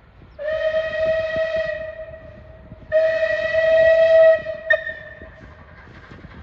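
Steam locomotive's whistle sounding two blasts, a shorter one and then a longer, louder one that cuts off sharply, over the low rumble of the train.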